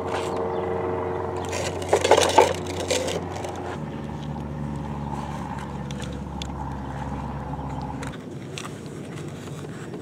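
A motor hums steadily, shifting to a lower, different pitch about four seconds in and cutting off about eight seconds in. A brief burst of rattling and scraping, the loudest sound, comes about two seconds in.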